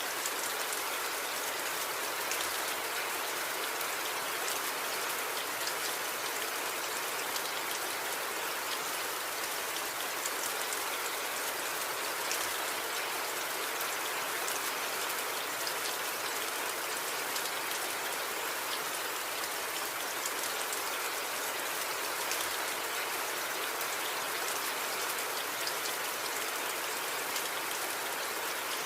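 Steady rain: an even hiss flecked with many small drop ticks, with no thunder.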